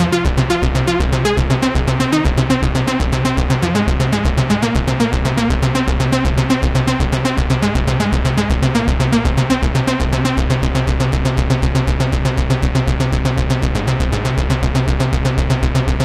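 Cherry Audio Chroma software synthesizer playing a rhythmic preset: a fast, even pulse of short synth notes over a steady bass.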